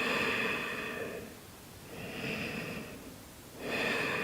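A person breathing slowly and audibly while holding a yoga pose, with three long breaths; the middle one is softer.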